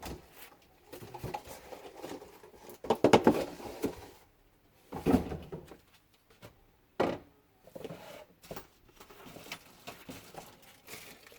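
Irregular rustling and light knocks of hands rummaging through packaging, in a string of short bursts with pauses between them.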